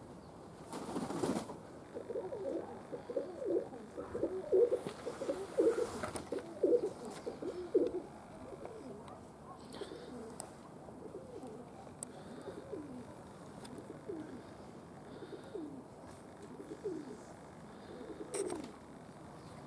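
Domestic pigeons cooing, many overlapping coos in the first half, thinning out to occasional single coos later.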